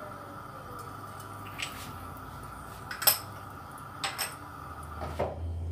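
A few light clinks and knocks of kitchenware as seasoning is added to a pan of olive oil, about four in all, the loudest about three seconds in, over a steady background hum.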